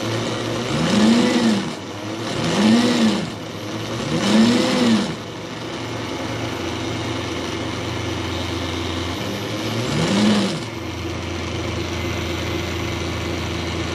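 Bafang BBSHD mid-drive e-bike motor run unloaded under throttle, its whine rising and falling as it is revved up and let back down three times in quick succession, then once more about ten seconds in. Between blips the motor keeps spinning steadily, as the controller keeps it running to make re-engaging the throttle smoother.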